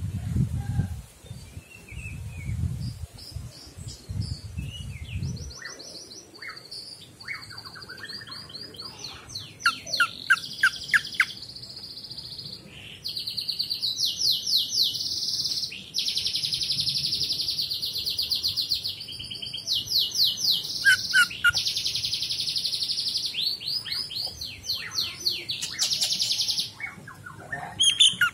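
Male cucak ijo (green leafbird) singing: rapid high trills and fast runs of repeated notes, with long unbroken trills through the middle, starting about six seconds in. A low rumble sits underneath for the first five seconds.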